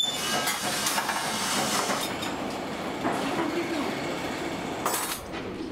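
Ribbed steel reinforcing bars clinking and rattling against each other and the workbench as they are handled, in a dense run of irregular metallic knocks, with a sharper clatter about five seconds in.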